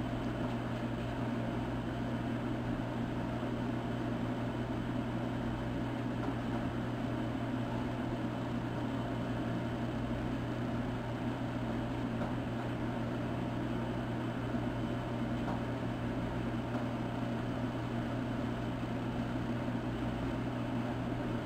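Steady background hum with a hiss over it, unchanging, with no distinct clicks or events.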